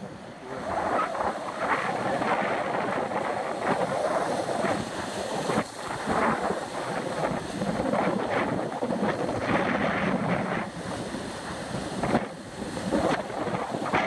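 Sea surf breaking and washing around shoreline rocks in surges, with wind buffeting the microphone.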